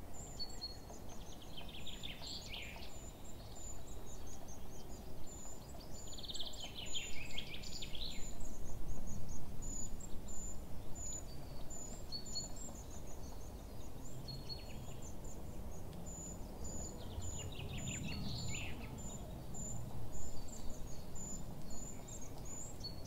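Woodland birdsong: a very high, thin note repeated about twice a second throughout, and three longer songs that run down the scale, about two seconds in, around seven seconds and near eighteen seconds, over a low steady outdoor rumble.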